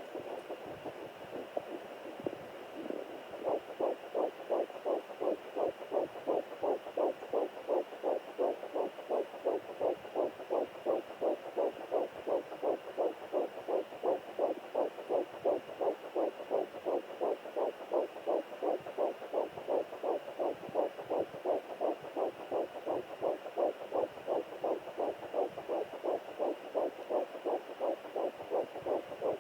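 Fetal heartbeat at nine weeks through a handheld home Doppler's speaker: static hiss while the probe searches, then about three and a half seconds in a fast, even whooshing pulse of nearly three beats a second, the rate of about 170 a minute typical of a fetal heart.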